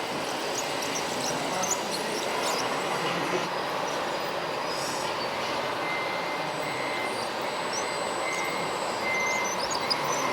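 Small electric motors and gearboxes of radio-controlled model trucks and tractors running steadily, with a thin whine and short high squeaks.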